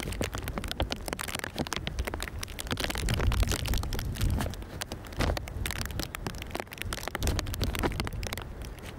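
A Boeing 747's jet engines rumbling with a rough crackle as the jet arrives, the rumble swelling and easing several times.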